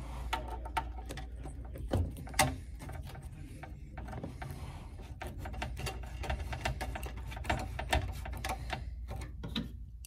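Screwdriver driving the graphics card's retaining screws into the PC case's metal expansion-slot bracket: a run of small metal clicks and ticks, with a few louder knocks about two and two and a half seconds in.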